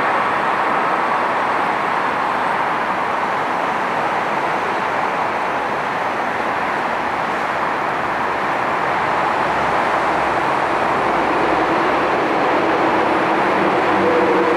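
Ilyushin Il-62M's four rear-mounted Soloviev D-30KU turbofans running, a loud, steady jet roar, with humming tones coming through near the end.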